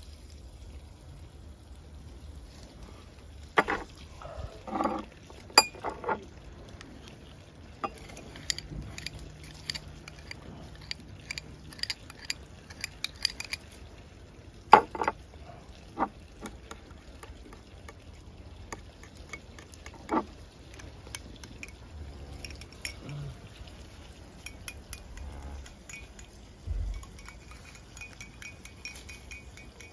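Kitchen utensils and dishes clinking and tapping in irregular, scattered strikes, with a few louder knocks; the loudest comes about fifteen seconds in.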